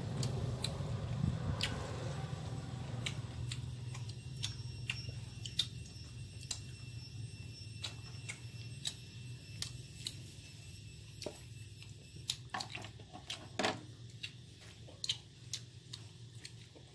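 Close-up eating sounds: a person chewing boiled buffalo skin, with scattered sharp, wet mouth clicks and smacks. Under it runs a low steady hum that fades after the first few seconds.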